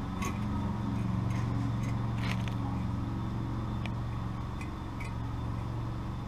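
Steady low engine hum, with a few short light clicks on top.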